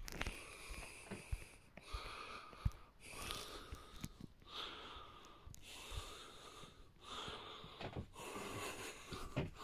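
A person breathing heavily and wheezily close to the microphone, one breath about every second, with a few light handling knocks.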